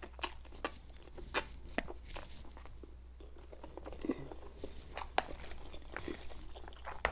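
Close-miked mouth sounds of eating Korean instant noodles: slurping strands in and chewing, with scattered wet smacks and clicks.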